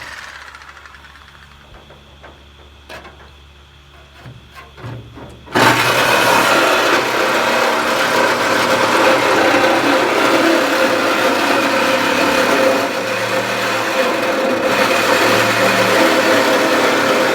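A power cutting tool winds down, a few clicks and knocks follow, then about five and a half seconds in it starts abruptly and runs loud and steady, cutting through the sheet metal of a pickup truck bed.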